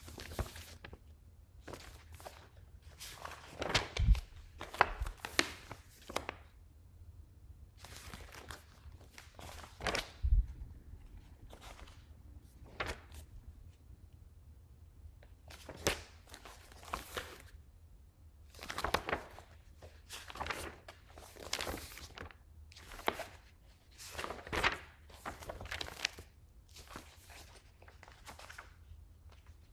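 Paper pages being flipped and handled in short rustling bursts, with dull thuds about four and ten seconds in.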